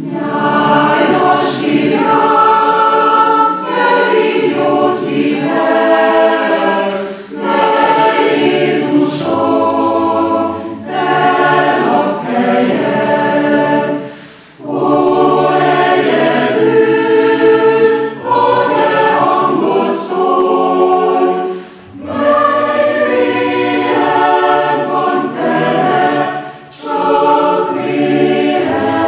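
Chamber choir singing in several-part harmony, low voices included, in phrases broken by short pauses.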